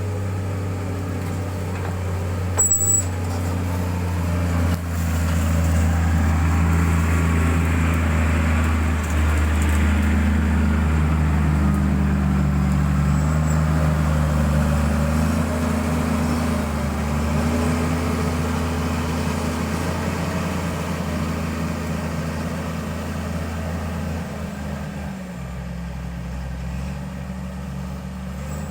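Heavy road-construction machine's engine running under varying load, its pitch rising and falling as it works. It grows louder about five seconds in and eases off near the end, with one brief sharp sound near the start.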